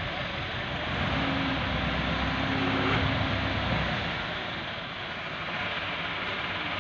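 Massey Ferguson 375 tractor's four-cylinder diesel running as its hydraulics tip the trailer, with sand sliding out of the trailer bed in a rushing hiss. It swells about a second in, with a steady whine for a couple of seconds, and eases after about four seconds.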